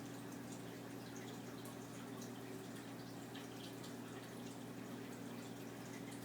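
A steady low hum with faint, irregular light ticks scattered over it.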